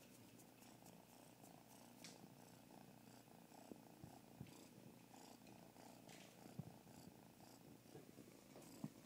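Kitten purring faintly and steadily while being stroked, with a few soft clicks and rustles.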